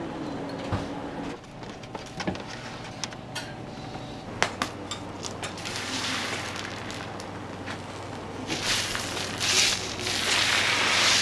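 Metal spatulas clicking and knocking on a teppan griddle, then loud sizzling on the hot iron plate that starts about eight and a half seconds in.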